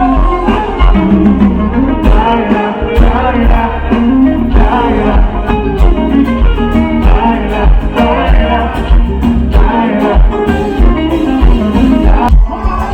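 Live band music with a singer over a heavy, pulsing bass beat and guitar, played loud.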